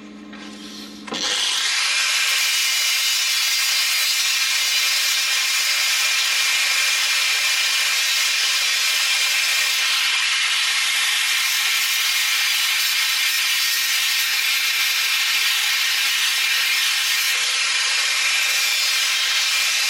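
Angle grinder with a sanding disc grinding a steel weld flush. A lower hum for about the first second gives way to a loud, steady, high grinding hiss and whine as the disc bites into the steel.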